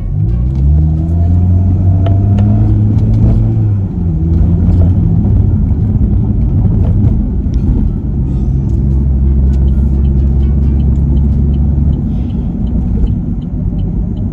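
Car engine and road rumble heard from inside the moving car's cabin. The engine note rises in the first second, then holds a steady drone that shifts about four seconds in and again around eight seconds in.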